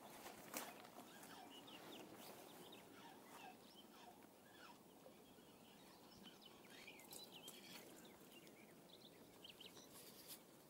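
Faint outdoor quiet with scattered short bird calls, and a sharp click about half a second in and another near the end.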